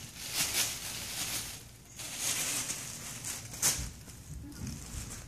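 Thin plastic shopping bag crinkling and rustling in irregular bursts as a Ragdoll cat wriggles around inside it, with one sharp crackle about three and a half seconds in.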